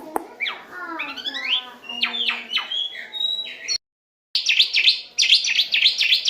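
Asian pied starling (jalak suren) singing: a string of varied whistles and squeaky calls that glide up and down, broken off by a brief silence about four seconds in, then a fast run of repeated high chattering notes.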